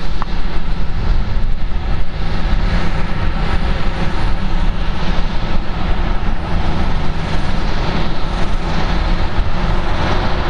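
Steady, deep rushing noise of jet aircraft at an airport apron, with no clear starts or stops.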